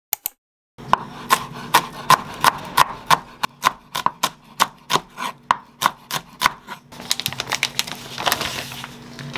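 Chef's knife chopping green onion on a wooden cutting board, even strokes about three a second. About seven seconds in, the chopping gives way to a rapid crackle of plastic film as a pack of chicken-breast sausages is torn open.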